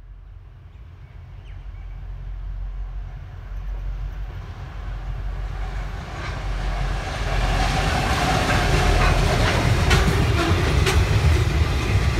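Container freight train passing: the low rumble of the diesel locomotive grows steadily louder as it approaches, and after it has passed the wagons' wheels click sharply over the rail joints near the end.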